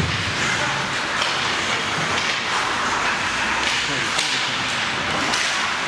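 Ice hockey play in a rink: skate blades scraping the ice and a few sharp knocks, over indistinct voices of spectators.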